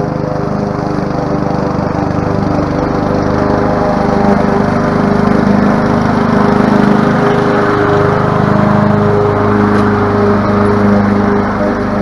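21-inch commercial Honda walk-behind mower's engine running steadily while mowing, its note shifting slightly about eight seconds in.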